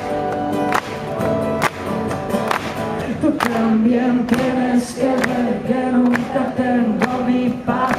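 Live acoustic band: strummed acoustic guitars with a tambourine striking about once a second. Two male voices come in singing together about three seconds in.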